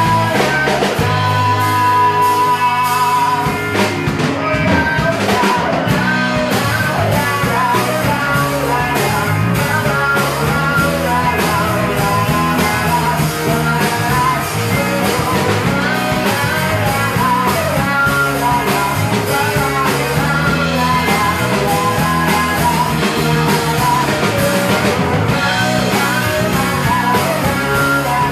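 Live rock band playing: guitars, bass and drums, with a singer. The sound is loud and full throughout.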